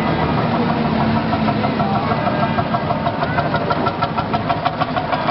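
Old farm tractor engines running as the tractors move slowly past. About halfway through, one comes close and its engine is heard as a rapid, even chugging beat.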